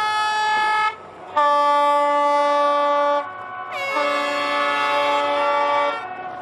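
Horns sounding a series of long, loud blasts, each at a different pitch; the last one starts with a short downward slide in pitch.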